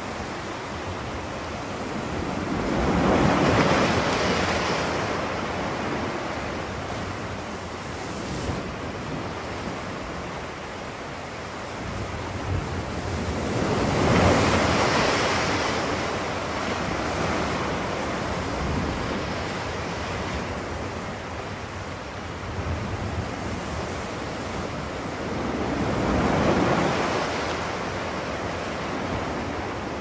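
Ocean surf: waves breaking and washing in over a steady rush, swelling three times about eleven seconds apart.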